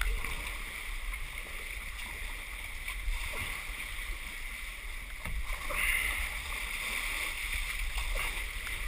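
Kayak paddle strokes dipping and pulling through the water, with water sloshing steadily around the kayak's hull and a few light knocks.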